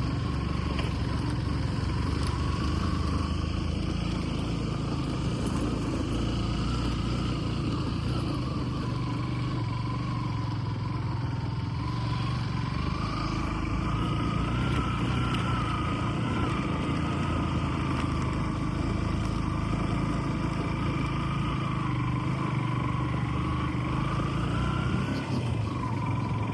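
A motor vehicle running steadily on the road, its engine and road noise held at an even level, with a wavering whine that drifts slightly up and down in pitch.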